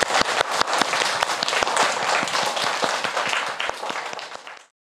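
A classroom of young children clapping together, many overlapping hand claps; the applause fades in the last second and then cuts off abruptly.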